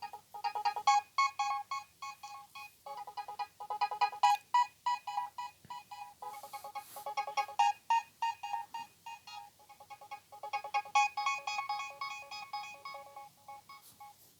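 Nokia 3120 mobile phone playing one of its built-in ringtones through its small speaker: a quick electronic melody of short, bright notes that cuts off near the end.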